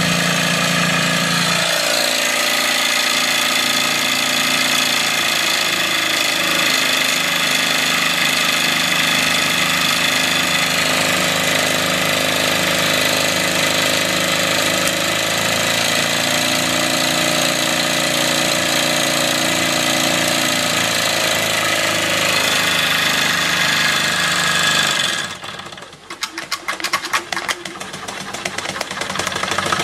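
Wilesco D24 model steam engine running fast, belt-driving a small stepper-motor generator: a steady mechanical run with a continuous whine. About 25 seconds in, the sound drops sharply and turns to uneven rapid ticking that grows louder again near the end.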